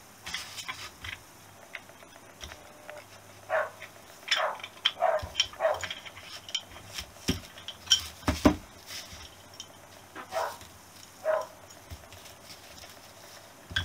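Brake shoes and return springs being prised off a Honda XL250S front drum-brake backing plate: a run of metal clicks, clinks and short scrapes, the loudest knocks a little past halfway.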